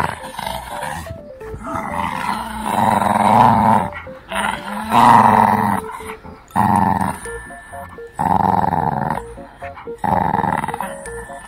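Shih Tzu puppy play-growling in a string of bouts while tugging on a rope tug toy, the longest and loudest bout about halfway through.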